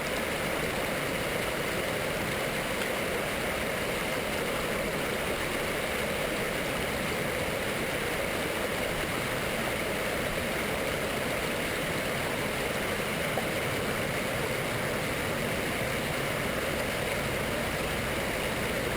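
Small mountain stream's water running, a steady, even rush.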